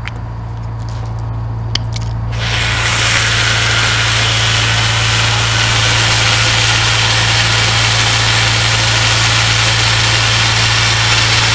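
Firefighting hose nozzle spraying a foam-solution stream onto a burning coal pile: a loud, steady hiss that starts suddenly about two seconds in. A steady low engine hum runs underneath.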